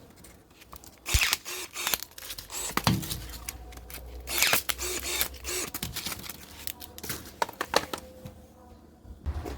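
Irregular clicks, knocks and rustling scrapes of things being handled, with louder bursts about a second in and again around four and a half seconds.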